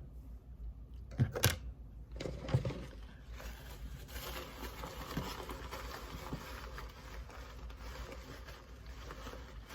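Items being handled and rummaged through: two knocks a little over a second and about two and a half seconds in, then continuous rustling and scraping.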